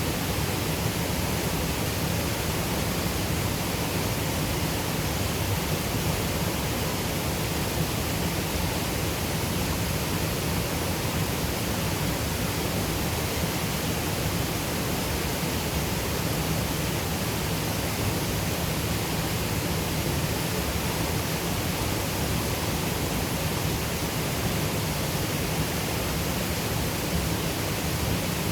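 Waterfall on a Highland river, the water pouring steadily as a continuous, unchanging rush.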